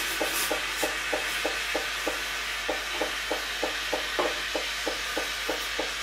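Espresso machine steam wand hissing steadily with its tip in milk in a stainless steel pitcher, steaming the milk for cappuccino. Under the hiss the machine's pump pulses about three times a second as it feeds water to the heater.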